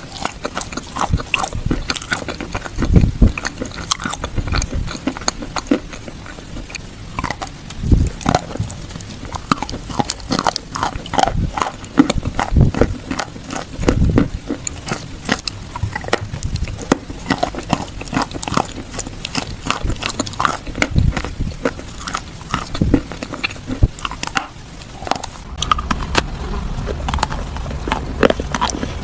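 Close-up crunching and chewing of something crisp and brittle: dense, irregular crackles and snaps, with a heavier crunching bite every few seconds.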